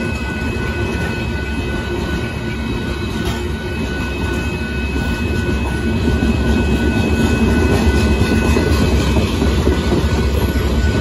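Loaded limestone gondola cars of a freight train rolling past at speed: a steady rumble and rattle of steel wheels on rail, growing louder about six seconds in, with steady high ringing tones held above it.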